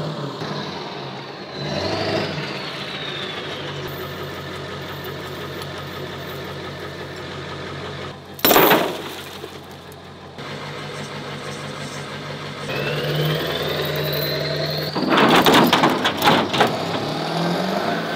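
A vehicle engine running and revving, its pitch rising twice. There is a single loud bang about halfway through and a burst of several loud bangs near the end.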